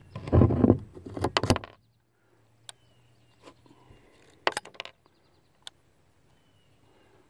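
Ruger Single Six .22 single-action revolver being worked by hand: a burst of handling noise with two sharp clicks in the first second and a half, then a few scattered metallic clicks as the cylinder is turned and spent cases are cleared.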